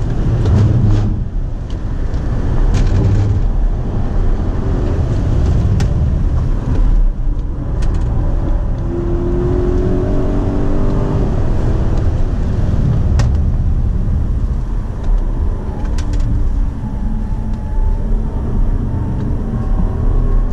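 2017 BMW Alpina B7's twin-turbo V8 at full track speed, heard from inside the cabin over heavy road and wind noise. The engine note climbs about nine seconds in, with a few short clicks along the way.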